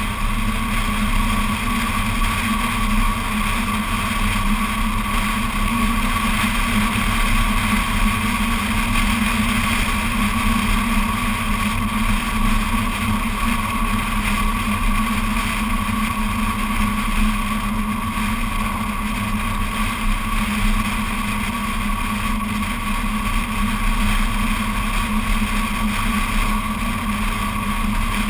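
BMW Z4 Coupé cruising at a steady speed, heard from a camera mounted on the outside of the car: a steady engine drone over low road and wind rumble, with no change in pitch.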